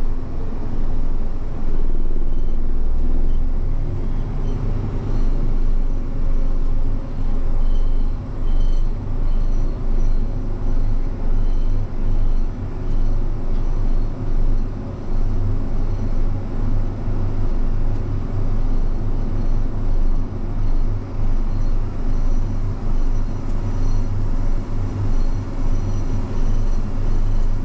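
A vehicle's engine running steadily while driving on the road: a low drone that pulses in level about once a second.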